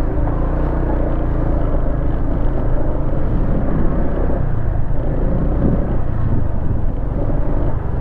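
A motorcycle engine running steadily as the bike rides along, its pitch drifting a little.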